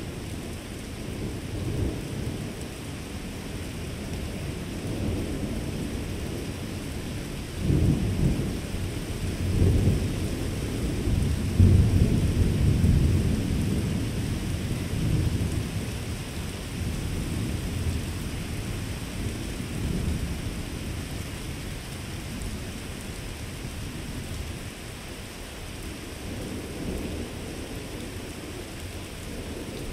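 Thunder rumbling and rolling: a continuous low rumble swells suddenly about eight seconds in, peaks twice a few seconds later, then slowly fades.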